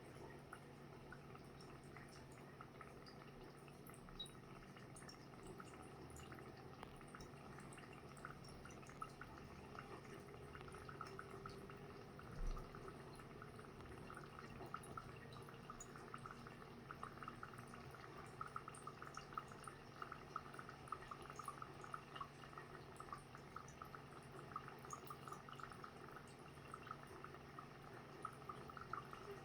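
Faint, fast bubbling and crackling of dry ice giving off gas in water, growing more active from about ten seconds in, with one soft thump about twelve seconds in.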